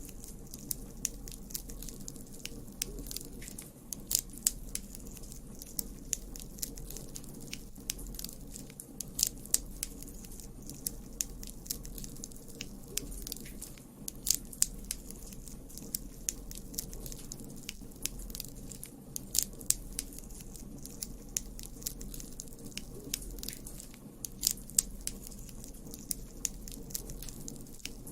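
Campfire burning, with a steady low rush and frequent sharp, irregular crackles and pops from the burning wood.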